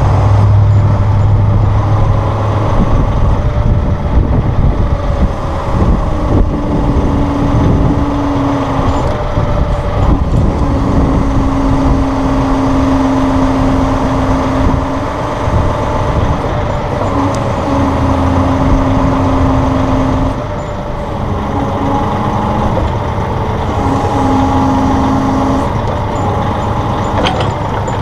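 Massey Ferguson 1742 compact tractor's diesel engine running while its CB75 backhoe is worked. A steady hydraulic whine comes and goes in several stretches of a few seconds each as the backhoe cylinders are moved.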